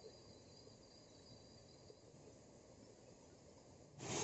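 Near silence: faint outdoor ambience with a thin, high, steady insect trill that fades out about halfway through.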